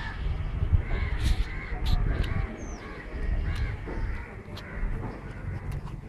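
Crows cawing repeatedly, short harsh calls about once or twice a second, over a steady low rumble.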